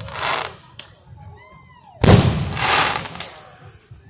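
Aerial fireworks bursting overhead: the hissing tail of one burst fades at the start, and a loud bang comes about two seconds in, followed about half a second later by a second, hissier swell. A brief rising-and-falling whistle is heard about a second and a half in.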